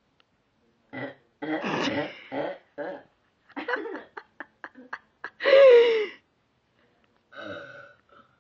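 A girl burping on purpose, several burps in a row with short clipped sounds between them. The longest and loudest burp comes about five and a half seconds in and falls in pitch.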